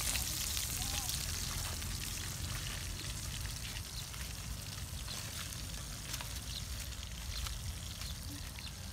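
Whole fish frying in oil in a metal wok over a wood fire: a steady sizzling hiss with scattered small pops.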